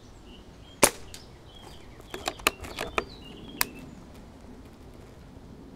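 Hämmerli 850 AirMagnum CO2 bolt-action air rifle firing one sharp shot about a second in. A quick run of smaller clicks follows about a second later, with one more click shortly after, as the bolt is worked to chamber the next pellet.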